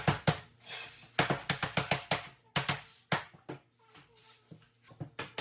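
Quick, irregular clusters of sharp knocks and taps: click-together laminate floor planks being tapped into place.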